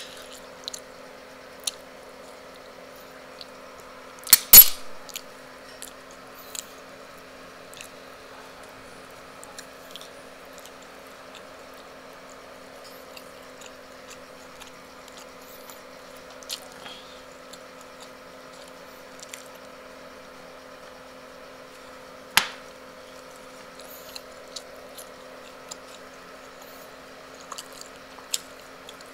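Close-miked eating: wet chewing and squishing mouth sounds with scattered small clicks of fork and fingers on a plate, over a steady low hum. A loud sharp clack comes about four seconds in, and another sharp click a little past twenty seconds.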